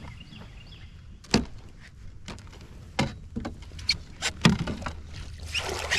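Sharp knocks and thuds on a fishing kayak, about five spread over a few seconds, then a wash of water splashing near the end as a hooked fish is fought and brought aboard.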